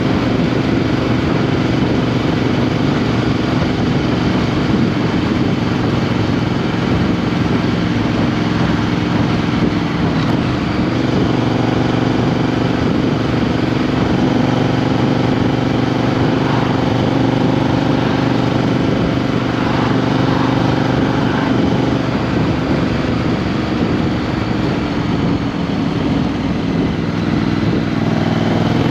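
Triumph Street Twin's 900 cc parallel-twin engine running steadily as the motorcycle is ridden. The engine note rises in pitch near the end as it revs up.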